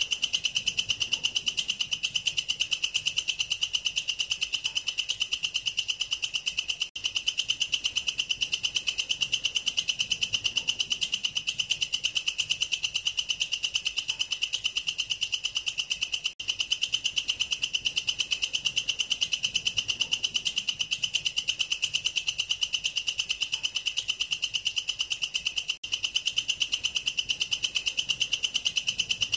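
Katydid (walang kerik, a bush cricket) stridulating: a continuous high, rapidly pulsing trill that breaks off for an instant three times.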